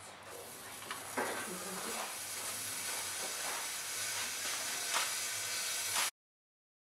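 Steady hiss of a jet of white vapour pouring out of a smoke-effect rig, building slightly, then cutting off abruptly about six seconds in.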